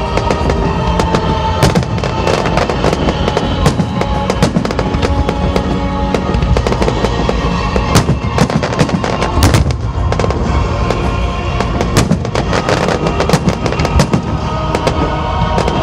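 Fireworks display: a dense, continuous run of bangs and crackling, many reports a second, with music playing along underneath.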